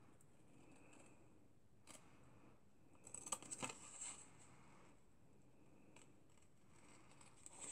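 Small scissors snipping through cardstock: a few faint cuts, one about two seconds in and a short cluster about three to four seconds in.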